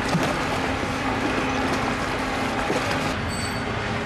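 Steady low machinery hum under a broad outdoor rush, with the hum shifting about three seconds in as a short high tone sounds.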